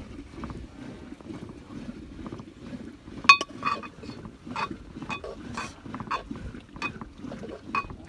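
Metal spoon stirring meat in a metal cooking pot and clinking against it with a ringing tone, about two strikes a second from about three seconds in; the first strike is the loudest. A wood fire burns underneath with a low, steady sound.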